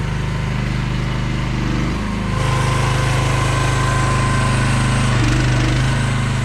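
Small engine of a 1-ton mini excavator running steadily; about two and a half seconds in it grows louder and harsher and holds there.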